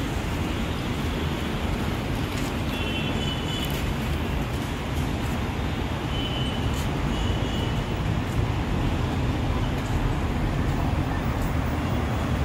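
Steady street traffic noise from passing road vehicles.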